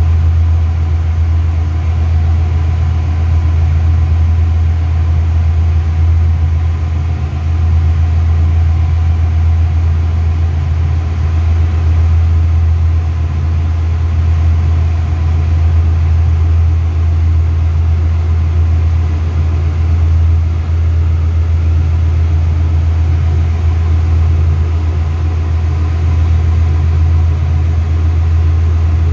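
Steady, deep engine-room machinery hum, even and unchanging, with faint steady tones above it.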